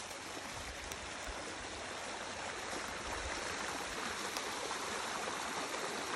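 Small rocky creek running and splashing over stones in a little cascade, a steady rush of water that grows louder as the microphone draws closer.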